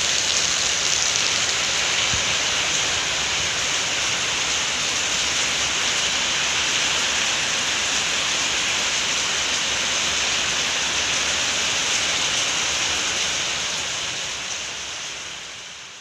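Steady rain falling, an even hiss that fades out over the last few seconds.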